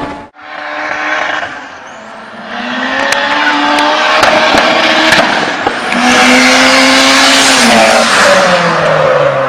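A Honda Civic's VTEC engine and exhaust running loud under hard throttle. The pitch climbs and holds high several times, then steps down near the end, as it does on a gear change. There is a brief abrupt dropout about a third of a second in.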